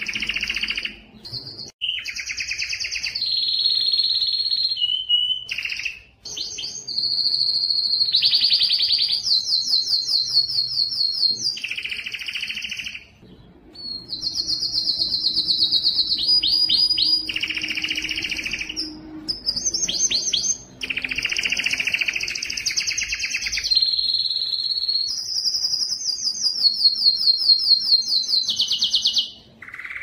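Male canary singing a long courtship song to attract females: phrases of fast trills and rolling notes, each a second or two long, with a few short pauses between them.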